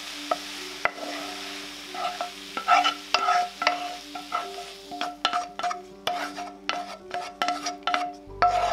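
A spatula scrapes and knocks fried peppers and onions out of a non-stick frying pan into a glass bowl. It goes in short repeated strokes that come faster from about halfway, roughly two a second. The hot pan is still faintly sizzling at the start.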